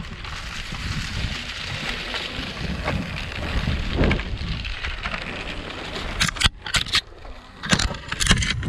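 Mountainboard wheels rolling over a dirt trail, a steady rumbling rush with wind buffeting the microphone. From about six seconds in come a handful of sharp crunches and clatters.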